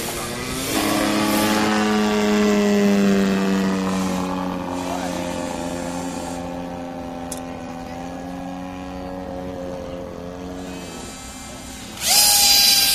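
Radio-controlled model airplane motor running at a steady speed, its pitch slowly sinking until it dies away. About a second later another model plane's motor throttles up suddenly, much louder, with a high whine.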